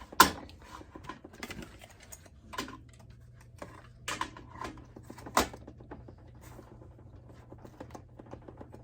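Hard plastic clicking and knocking as a plastic action figure is handled and pushed onto its plastic display stand: a handful of scattered sharp clicks, the loudest just after the start and about five seconds in.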